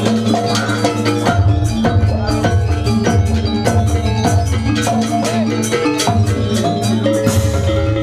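Gamelan ensemble playing Janger dance music: metallophones ringing in quick, closely spaced struck notes over drums and a steady low tone.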